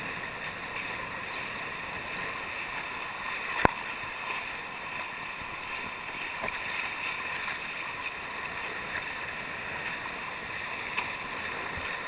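Nacra 580 catamaran hulls rushing through the water under sail: a steady hiss of water and spray, mixed with wind on the microphone. A single sharp click about a third of the way in.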